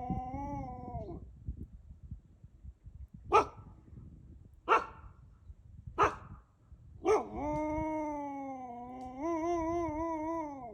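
Wolf howling: a held howl ends about a second in, then three short sharp barks come about a second and a half apart, then a long howl begins with a quick rise in pitch and wavers up and down near the end.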